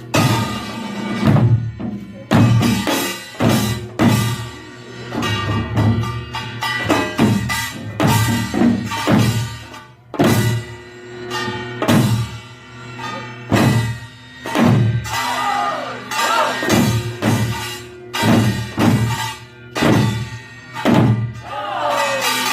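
Korean pungmul percussion ensemble of drums and gongs playing a steady rhythm, with strong beats about once a second, lighter strokes between them, and ringing metal tones over the drumming.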